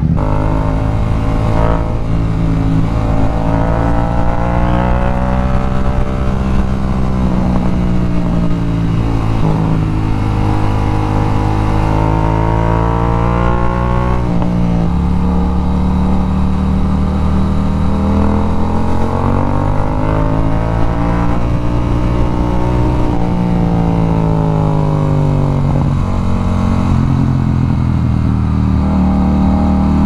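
Yamaha XSR700's 689 cc parallel-twin engine being ridden, its note rising with the revs and falling back several times over, with a few sudden drops in pitch.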